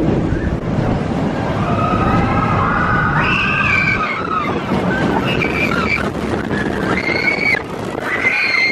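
Expedition Everest roller coaster train running along the track, with a steady rumble and wind on the microphone. Riders scream several times over it, with high, drawn-out cries from about a second in until near the end.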